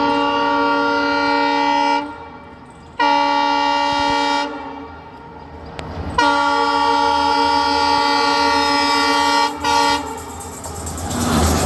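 Freight train locomotive horn sounding four blasts: two long, one shorter, and a brief toot. Near the end the rumble of the passing train builds up.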